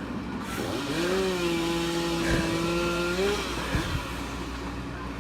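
Two-stroke chainsaw revving up about a second in, held at steady high revs for around two seconds, then dropping back to a fainter running.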